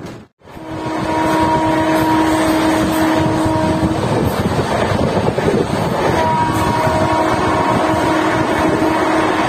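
Rushing wind and rail noise of a train running at speed, heard through an open coach door. Over it the electric locomotive's horn sounds in two long blasts, the first about a second in and the second from around six seconds in.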